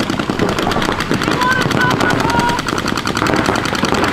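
Paintball markers firing in rapid, continuous strings of shots, with short high calls heard over the firing.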